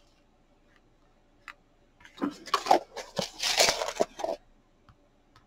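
Rustling and crinkling with small clicks as a plastic container of pearl embellishments is handled and picked through. It starts about two seconds in and lasts about two seconds.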